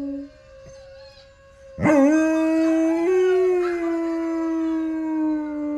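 A dog howling in long, steady howls. One howl ends just after the start, and after a short pause a second begins nearly two seconds in, wavering briefly in pitch before it settles and holds.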